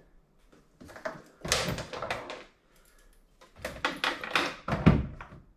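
Clattering and knocking of hard parts being handled on a jet ski, in two bursts of rapid clicks about a second long each.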